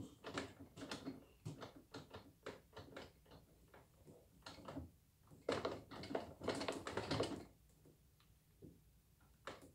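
A baby's hands patting and slapping a plastic high-chair tray: irregular light taps, with a quick flurry of them about five and a half to seven seconds in.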